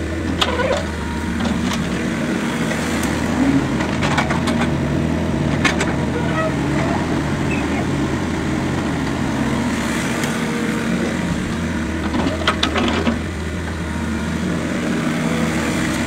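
Compact excavator's diesel engine running steadily while it loads manure into a tipper lorry, with a few sharp knocks scattered through, loudest a little before the end.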